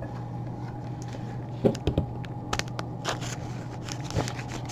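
Gloved hands handling a thick trading card: a few soft clicks and rustles scattered through the middle, over a steady low hum.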